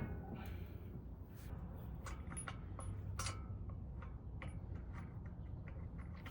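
A few faint, scattered clicks and taps, most of them in the middle of the stretch, over a low steady hum.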